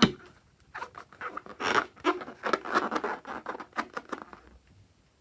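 Hands gripping and rubbing a rubber balloon: a sharp click, then a run of short scratchy rubbing noises that stop about four and a half seconds in.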